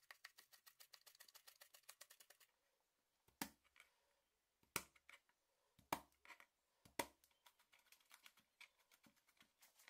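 Chef's knife chopping on a plastic cutting board: rapid light taps through fresh herbs for the first couple of seconds, then four single louder knocks about a second apart as garlic cloves are cut, and a few faint taps near the end.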